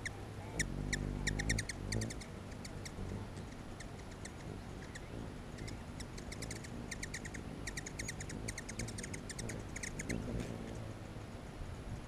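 Hummingbirds giving rapid clusters of sharp chip calls, with a low buzzing hum from their wings as they hover close by, strongest in the first two seconds and again near the end.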